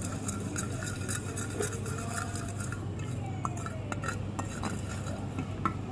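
A utensil stirring and scraping slime mixture in a bowl, with small clicks and clinks, over a steady low hum.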